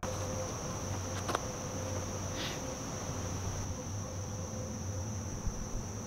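Insects droning steadily on one high pitch, with a couple of faint clicks about one and a half and two and a half seconds in.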